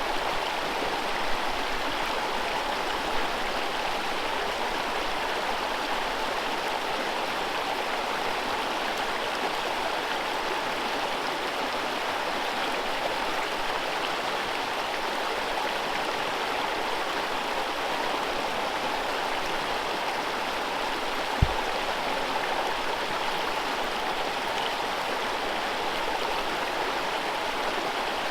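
Forest river rapids: whitewater rushing over rocks in a steady, even hiss. A single short low thump about three quarters of the way through.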